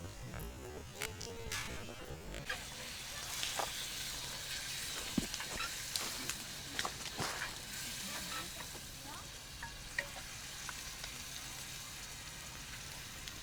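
Food sizzling as it fries in a pan, a steady hiss that thickens a couple of seconds in, with scattered sharp ticks.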